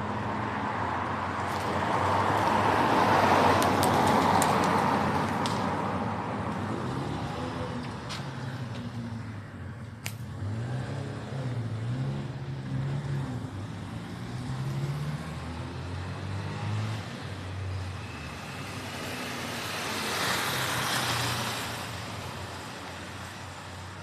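Cars passing along the street: one loud pass that swells and fades in the first few seconds, another about twenty seconds in, with a low engine hum in between.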